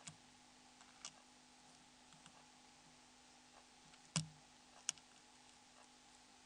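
A few faint, sharp clicks of small tools and plastic phone parts being handled, the loudest about four seconds in.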